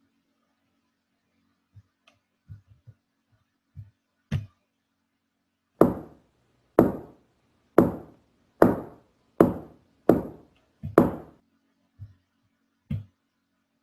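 Foley sound effect: a few light taps, then a run of seven loud, sharp knocks or chops about one every 0.8 seconds, each ringing off briefly, ending with two softer knocks.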